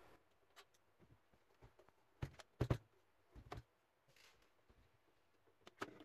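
Scattered light clicks and knocks of a screwdriver and hands handling a plastic Bluetooth speaker casing, with a few sharper knocks around the middle and again near the end.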